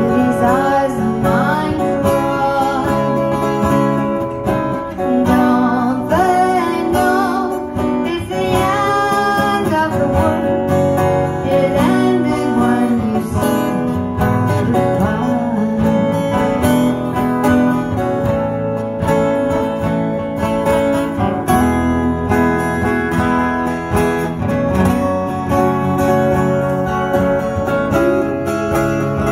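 A live acoustic band: two acoustic guitars strumming chords while a woman sings the melody into a microphone.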